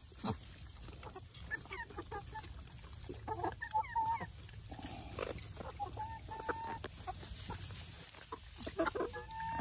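Chickens clucking, with scattered short high calls and chirps and a few brief held notes.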